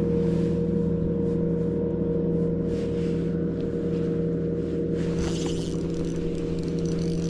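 Boat motor running at a steady pitch, giving a constant hum, with a burst of hiss about five seconds in.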